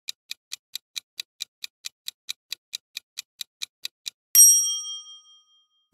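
Quiz countdown timer sound effect: rapid, even clock ticks, about five a second, then a bright bell ding that rings out as time runs out. A short pop comes right at the end.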